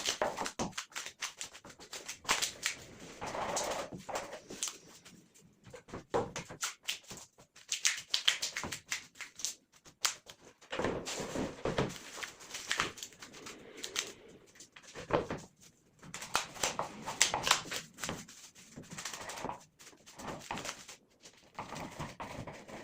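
Hand work on wood: an irregular run of taps, knocks and scraping, in clusters with short pauses.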